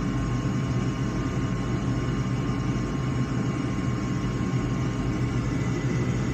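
Gas furnace draft inducer motor running with a steady hum during the pre-purge, before the pressure switch closes and the igniter comes on.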